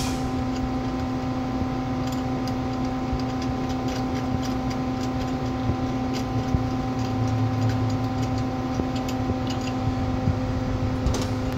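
CNC lathe humming steadily at idle while stopped at a programmed stop with the spindle still, a constant drone on one fixed pitch with overtones over a low rumble. Faint scattered ticks as a thread gauge is worked on the machined part.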